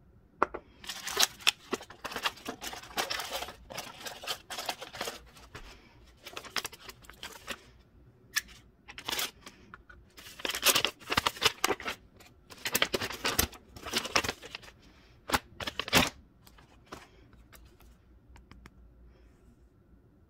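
Packaging being handled and opened: a cardboard mailing box and a white plastic mailer rustling and crinkling in irregular spells, with a couple of sharp clicks about three-quarters of the way through.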